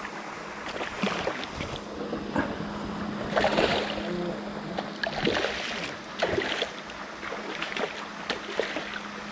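Hooked black sea bream thrashing at the water surface, throwing up irregular splashes, loudest about three and a half seconds in. A steady low hum runs underneath.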